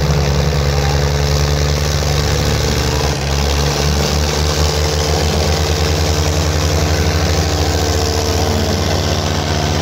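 Tractor diesel engines running hard in a tug-of-war pull, a loud, steady, pulsing low drone with a brief dip about three seconds in.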